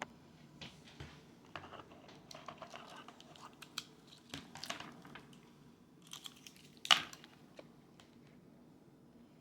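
Hand-handling noises: scattered small clicks and crinkly rustling, with one louder sharp clack about seven seconds in.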